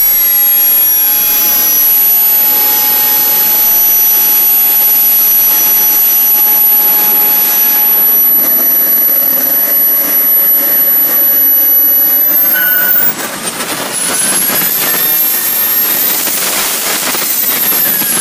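Wren 100K Pro model jet turbine running at high RPM with a steady high-pitched whine and rushing exhaust. About two-thirds of the way in, its pitch climbs for a few seconds as it spools up, then eases back down near the end.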